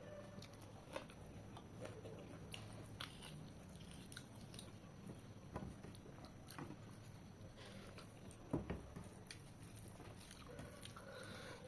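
A person chewing and biting food, close to the microphone, with scattered small clicks and smacks and one louder knock about eight and a half seconds in.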